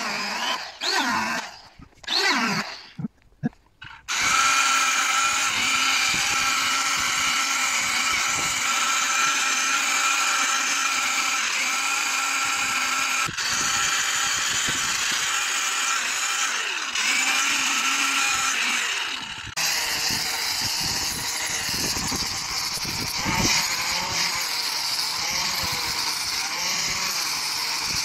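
Handheld rotary tool with a burr bit revving in short bursts against the wood, its pitch rising and falling. After about four seconds, an angle grinder with a disc grinds the wooden carving as a continuous high whine, with a couple of abrupt jumps in the sound.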